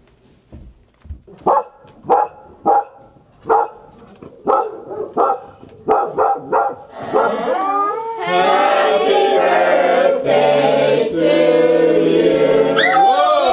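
A dog barks about a dozen times in short, spaced barks. From about eight seconds in, music with singing takes over and runs on loudly.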